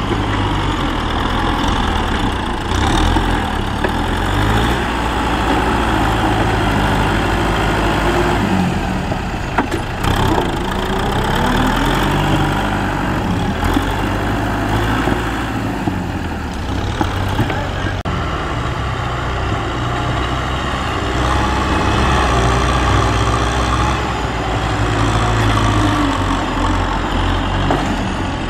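Kubota tractor's diesel engine running steadily under load as it pushes soil with a front dozer blade.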